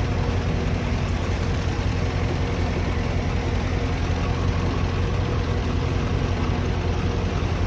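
Heavy diesel engine running steadily, a low, even drone that holds at one pitch.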